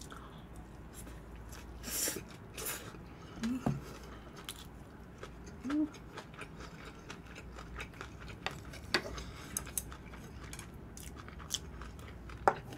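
Close-miked chewing and mouth sounds from eating bibimbap, with scattered light clicks and a few short, louder bursts, the strongest about two seconds in.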